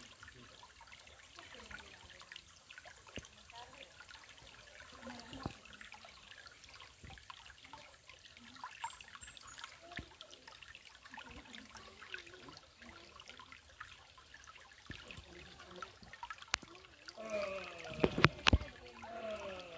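Water trickling and dripping, with many small scattered clicks. Near the end a voice and a couple of louder knocks cut in.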